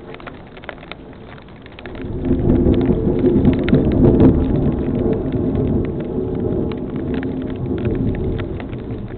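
A long roll of thunder builds about two seconds in, is loudest around four seconds and slowly fades, over steady heavy rain with sharp ticks of drops striking nearby.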